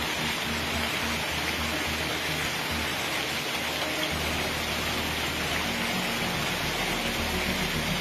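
Heavy rain mixed with hail pouring down, a dense, steady hiss of falling water and hailstones on the ground.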